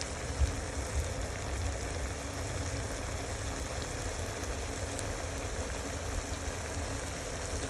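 Steady sizzling hiss of food frying, with a low rumble and a couple of knocks in the first second.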